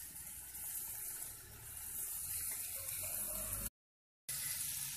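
Sliced onions, green chillies and ginger sizzling in oil in a pressure cooker pan: a steady hiss that cuts off for about half a second near the end, then resumes.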